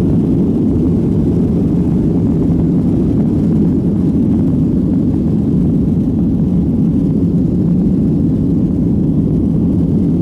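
Jet airliner's engines at takeoff thrust, heard from inside the passenger cabin as the plane lifts off and climbs: a steady, loud, low rumble.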